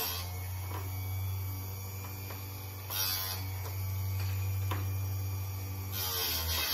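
Chicago Electric electric chain sharpener's motor running with a steady hum, its grinding wheel briefly grinding chain teeth three times: right at the start, about three seconds in, and near the end, where the hum dips in pitch for a moment.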